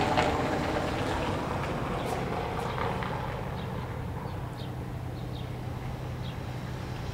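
Steady low hum of a ship's engine under a continuous wash of wind and water noise, heard from on board a vessel out on the water.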